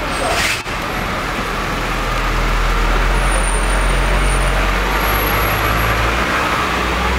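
Vehicle engine running at low speed, a steady low rumble that grows louder about two seconds in, with a short sharp knock about half a second in.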